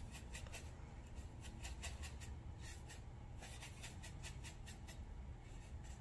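Paintbrush scrubbing and dabbing paint on a plastic palette tray while mixing a brown: faint, quick, uneven scratchy strokes, several a second.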